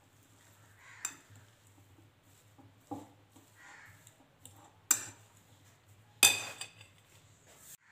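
Metal fork clinking and scraping against a ridged glass bowl while mashing and mixing boiled potato filling. Four sharp clinks come about two seconds apart; the loudest is near the end and trails into a short rattle.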